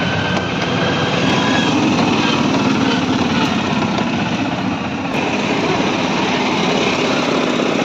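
Small auto-rickshaw engine running steadily under way, heard from inside the vehicle's cabin, with a fast, even putter.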